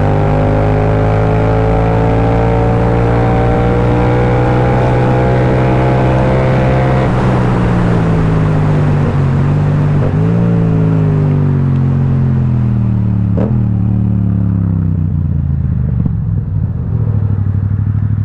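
Yamaha XSR700's 689 cc parallel-twin through an Akrapovic carbon full-system exhaust, heard while riding: the revs pull up steadily for about seven seconds, then the throttle closes. A short blip comes about ten seconds in, then the revs fall away as the bike slows.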